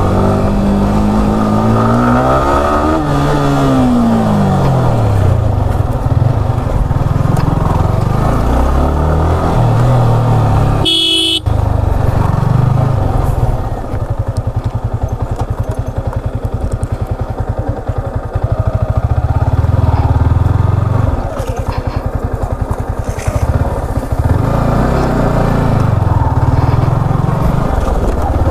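Yamaha R15M's 155 cc single-cylinder engine riding at low speed, its pitch rising and falling with the throttle in the first few seconds, then running on steadily. A short horn beep sounds a little before halfway.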